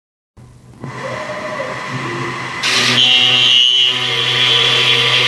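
CNC router spindle running and milling wood: a steady machine hum that becomes louder about two and a half seconds in, with a high steady whine.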